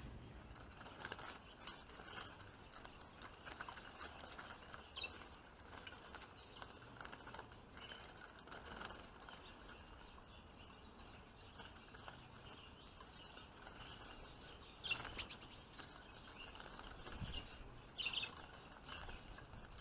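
Faint, scattered chirps of small songbirds with light rustling, and a few louder short high-pitched chirps about 15 and 18 seconds in.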